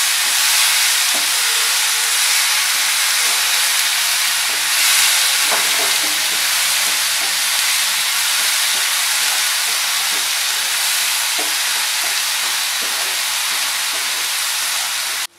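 Ginger, garlic and onion paste sizzling in hot oil in a frying pan as it is fried until brown, stirred with a spatula that scrapes lightly now and then. The steady sizzle cuts off suddenly just before the end.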